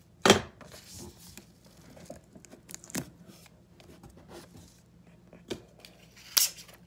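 Clear sticky tape pulled off the roll and torn in a few short rips, the loudest just after the start and another near the end, with paper rustling in between as the sheet is pressed down.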